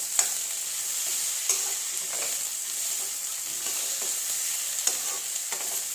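Cauliflower, potato and bari (sun-dried lentil dumplings) sizzling steadily as they fry in a pan with very little oil. A spatula stirs them, with a few short clicks against the pan.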